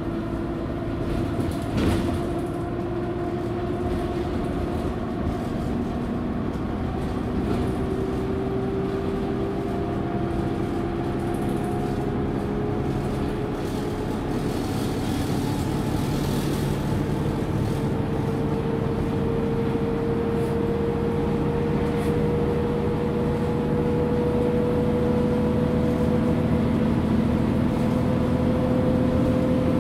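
Mercedes-Benz Citaro G articulated bus with its OM457 diesel and ZF Ecomat 6HP automatic gearbox running in the top gears (fifth and sixth): a steady engine drone with a gearbox whine rising slowly in pitch as the bus gathers speed. A single thump about two seconds in.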